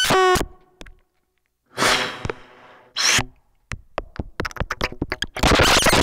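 Free improvisation on amplified trumpet and modular synthesizer: a falling pitched glide that cuts off, a short gap, two bursts of hiss, a run of sharp clicks and pops, then a loud sustained noise that starts near the end.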